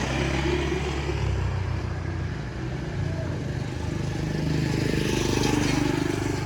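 Street traffic: motor vehicles running with a low engine rumble and tyre noise, one passing close and growing louder about five seconds in.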